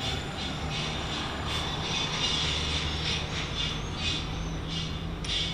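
A steady machine hum with an even rushing noise, with short faint high-pitched streaks now and then over it.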